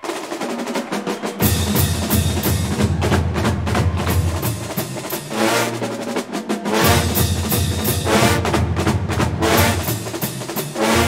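College marching band playing a march, the drums to the fore: snare strokes keep a steady, driving beat, with bass drums coming in after about a second and a half. Pitched chords from the horns sound over the drums around the middle.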